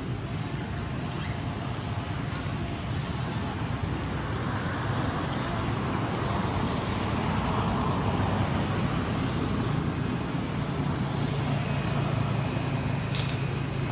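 Steady background rumble of road traffic, with a low engine hum, swelling slightly midway.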